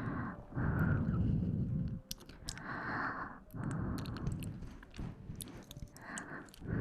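Close-miked ASMR sounds made right at the microphone: several passes of soft noise, each about a second long, heavy in the low end, with small clicks between them.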